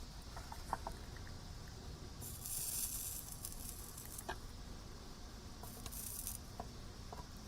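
Solder joint being reworked with a soldering iron: flux sizzles in two short hisses, the first about a second long, the second shorter, amid small scattered clicks of the iron and solder on the circuit board.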